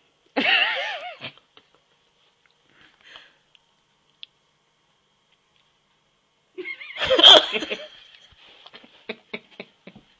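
Women laughing hard in two loud bursts, one just after the start and a longer one about seven seconds in, with a quick wavering pitch; the second trails off into a run of short wheezy gasps.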